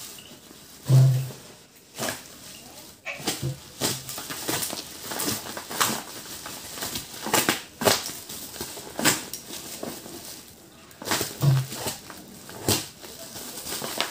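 Black bubble wrap and plastic parcel wrapping being cut and pulled open by hand: irregular crinkling and crackling, with a dull thump about a second in and another near the end.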